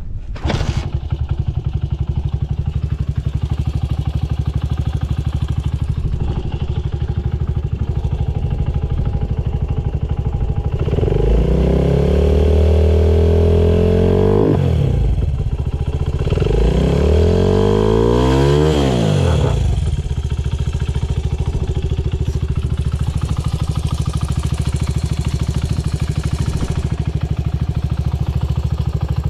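Honda Ape 50 with a swapped-in Ape 100 single-cylinder four-stroke engine and Yoshimura titanium exhaust. It catches on a cold start about half a second in and settles into a steady idle, with no abnormal noise. The throttle is blipped twice, the pitch rising and falling each time, at about 11 and 17 seconds.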